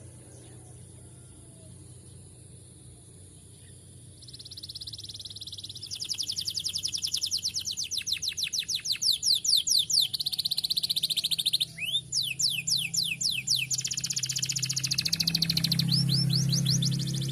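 Domestic canary singing: after a few quiet seconds, a long run of rapid trills of fast-repeated high notes, one roll after another, broken by a held note and a few separate falling notes. A low hum rises underneath near the end.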